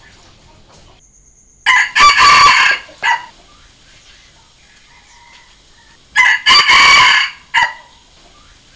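Red junglefowl rooster crowing twice, a few seconds apart. Each crow is a short note, a long loud middle note and a clipped final note. It is a decoy crow meant to make wild roosters crow back.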